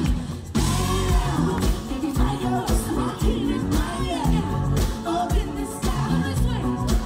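Live pop music over a PA: a woman singing into a microphone over a band with a steady beat.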